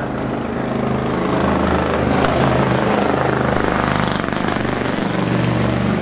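Race car engine noise from the circuit, a steady low drone that swells about a second in and stays loud through the middle before easing a little.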